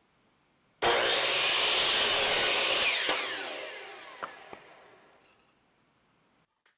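Electric miter saw starting up and cutting through a wooden board, then switched off, its blade spinning down in a falling whine that fades over a few seconds. A few light knocks as the cut piece is handled.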